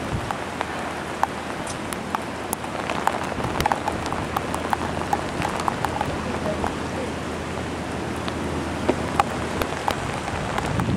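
Heavy storm rain falling steadily onto hard surfaces, a constant hiss with many sharp individual drop hits.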